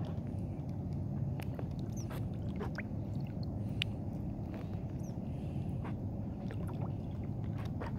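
Water lapping and dripping around an inflatable kayak drifting in shallow lake water: a steady low rumble with many small sharp splashes and drips.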